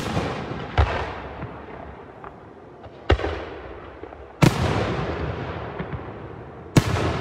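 Aerial firework shells bursting overhead: five sharp bangs spaced about one to two seconds apart, each trailing off in a fading echo.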